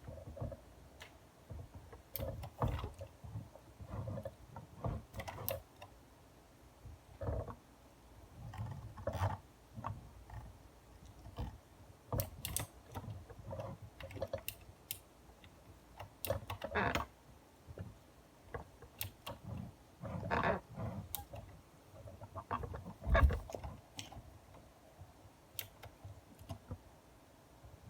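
Irregular clicks and taps of a computer mouse and keyboard, scattered in small clusters with soft low thumps among them.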